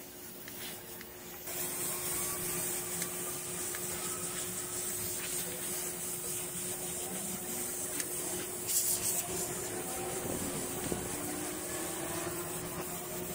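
A machine starts about a second and a half in and runs steadily, a strong hiss over a constant hum.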